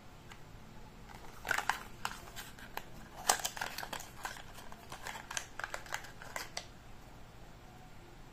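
A small cardboard tuck box being opened by hand: short scrapes, light clicks and rustles of card, clustered from about one and a half seconds in until about six and a half seconds in.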